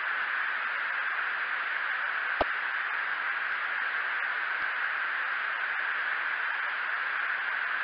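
Steady hiss of a Navy jet's cockpit radio/intercom recording in a gap between the pilots' transmissions, with one sharp click about two and a half seconds in.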